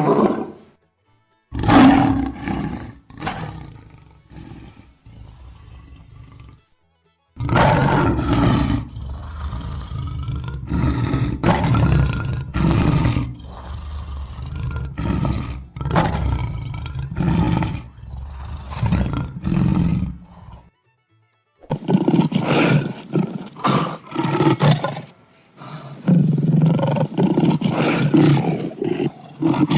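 Lions roaring: bouts of deep roars and grunting calls, one after another about once a second, in several separate clips with brief silences between them.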